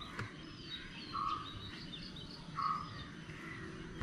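Faint outdoor animal calls: thin bird chirps and whistles, with a short buzzy call repeating twice, about one and a half seconds apart.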